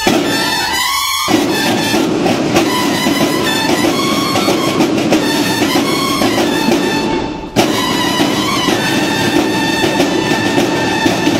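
Brass band music with fast, steady drumming and held brass notes, breaking off for an instant about seven and a half seconds in before carrying on.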